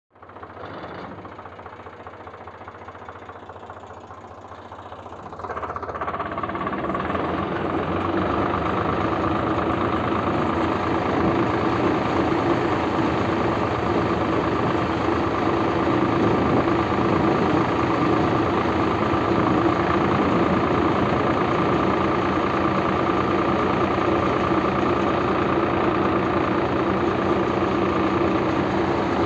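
Tractor-driven pearl millet (bajra) thresher running with a steady mechanical whine over engine noise while millet ear heads are fed into it. It grows louder about five seconds in and then runs steadily.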